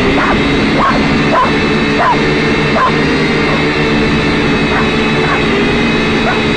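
Syma X5C quadcopter's electric rotor motors whining steadily at a near-constant pitch, with a run of short high yips over it.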